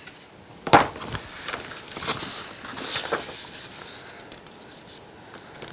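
Paper rustling as a picture book's page is handled and turned, with a sharp tap about three-quarters of a second in.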